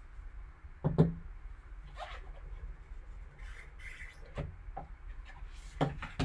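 Trading cards and their packaging handled on a table: soft rubbing and shuffling with a few light knocks, the loudest about a second in.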